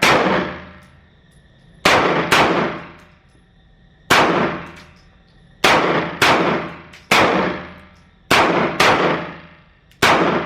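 Handgun shots from several shooters firing a slow accuracy drill, about ten single shots at uneven spacing, sometimes two in quick succession, each followed by a long echoing decay.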